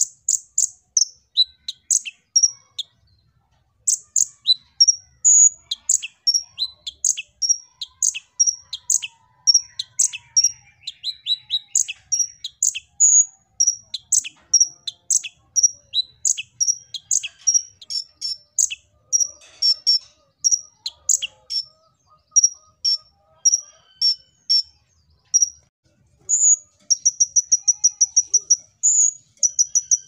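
Male Van Hasselt's sunbird (kolibri ninja) singing: a long run of sharp, high chirps, about two a second, with a brief pause a few seconds in. Near the end it breaks into a fast, even trill.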